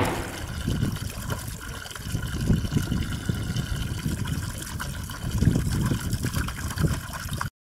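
Wind gusting across the microphone, with a cloth flag flapping in it, swelling and dropping in uneven gusts over a faint steady hiss. It cuts off abruptly near the end.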